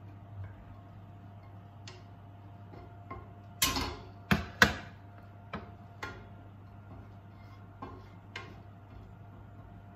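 Wooden spoon knocking and scraping on a nonstick frying pan: a short scrape then two sharp knocks about four seconds in, followed by a few lighter taps as it stirs in the pan. A faint steady hum lies underneath.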